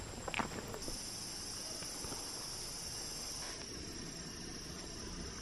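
A steady, high-pitched chorus of forest insects such as crickets or cicadas, growing louder about a second in, with a few light clicks at the very start.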